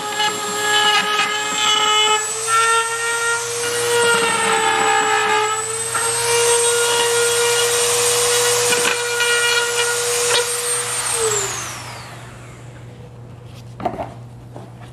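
Dremel rotary tool running at high speed, cutting a slot in a plastic bumper with a steady high-pitched whine whose pitch sags now and then as the bit bites. About eleven seconds in it is switched off and winds down in a falling whine, and a few light clicks follow.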